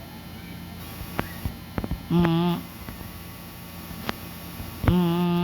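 A person humming an imitation of a fire-truck siren: a short hummed note about two seconds in, a few clicks, then a held low note starting near the end.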